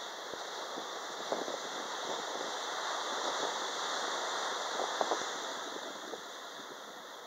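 Beach ambience: a steady rushing wash of surf and wind, swelling slightly in the middle, with a few faint crackles.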